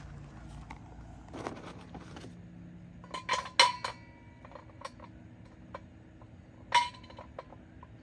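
Charcoal briquettes clinking against each other and the metal bowl of a small portable charcoal grill as they are arranged by hand: a short rustle first, then a quick cluster of sharp clinks about halfway through and one more loud clink near the end.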